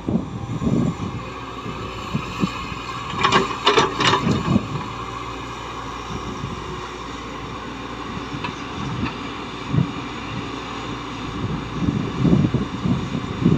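Heavy earthmoving machinery (excavator or dump truck) running, a steady rumble with uneven low thumps and wind on the microphone. About three to four and a half seconds in comes a brief run of sharp metallic clanks and clatter.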